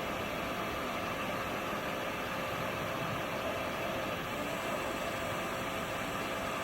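Acer EVS-3VS CNC vertical milling machine running a program: spindle turning while the X and Y table axes feed together, a steady mechanical hum with faint whining tones.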